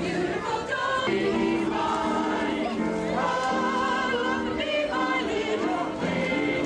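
A group of amateur women singers singing a song together, moving through a run of held notes.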